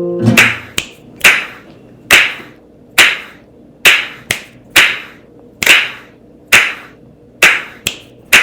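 Finger snapping in a steady beat, about one snap a second, with a few fainter snaps in between.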